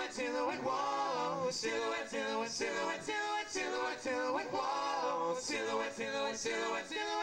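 Four-man a cappella group singing into microphones: short backing syllables repeated in close harmony about twice a second, with a held note that bends up and down about a second in and again about five seconds in.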